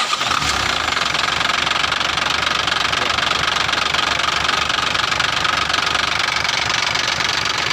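Cab-over diesel truck engine running steadily just after being started, with its injector nozzles freshly adjusted by hand to cure white exhaust smoke.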